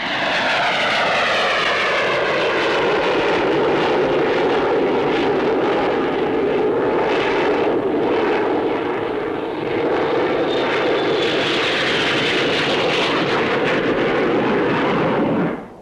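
Supermarine Scimitar naval jet fighters flying past, their twin Rolls-Royce Avon jet engines making a loud, steady rush. Whistling tones fall in pitch over the first couple of seconds as the jets pass, and a thin whine rises around the middle. The sound cuts off just before the end.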